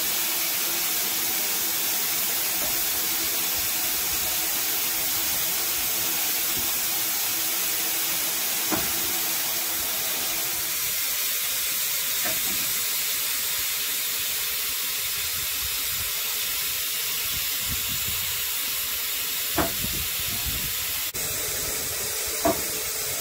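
Steam hissing steadily from standing steam locomotive 23 1097, with a few short knocks near the end.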